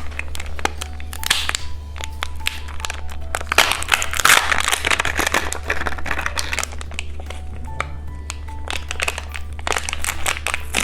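Plastic candy wrapper crinkling and tearing as a surprise egg is unwrapped by hand: dense irregular crackles, over faint background music.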